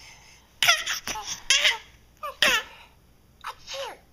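Several short bursts of high-pitched giggling, each sliding down in pitch, spread over a few seconds.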